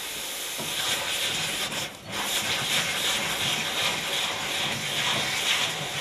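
Liquid oxygen being bled off from a disconnected filling hose: a steady hiss of escaping cold oxygen. It swells up about a second in, cuts out briefly near two seconds, then carries on.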